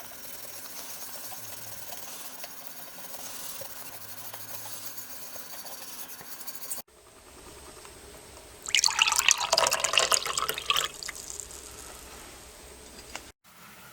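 Water running and splashing, as from a tap during washing, in short clips cut together: a steady trickle first, then a louder splash lasting about two seconds in the second clip.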